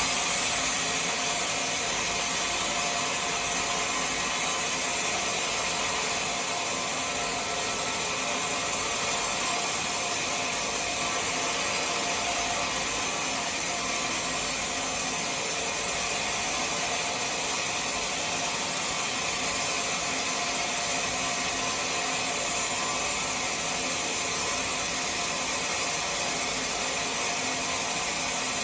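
A woodworking power tool running steadily without a break, a constant, even whirring hiss with faint steady tones.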